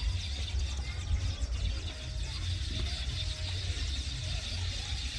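A colony of weaver birds chattering: many short, overlapping chirps with no pause, over a steady low rumble.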